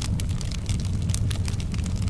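Wood fire crackling in a fireplace: frequent sharp crackles over a steady low rumble.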